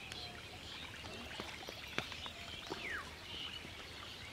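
Scattered small bird chirps over a steady outdoor background hiss, with a few faint sharp clicks, one near the middle.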